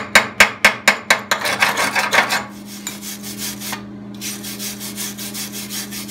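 Quick hand-hammer strikes on steel, about four a second, stopping a little over a second in, followed by a second of scraping and then lighter, even rubbing strokes, all over a steady low hum. It sounds like a fresh weld being cleaned up: slag chipped off, then the bead brushed.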